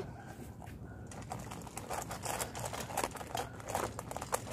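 Dogs crunching and chewing dry kibble, a dense run of small irregular crackling clicks that thickens about a second in.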